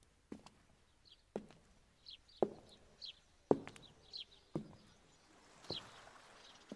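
Sharp knocks at an even pace of about one a second, each ringing briefly, with small birds chirping between them.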